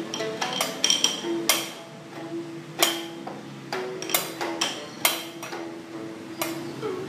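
Two wooden sticks beating an uneven rhythm on a bamboo tube and a small brass gong: dry, pitched wooden knocks with a short ring, and now and then a much louder, bright strike.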